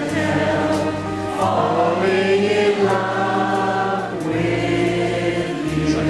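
Live band playing a slow ballad with choir-like backing vocals and singing held over long notes, the bass changing about every second and a half.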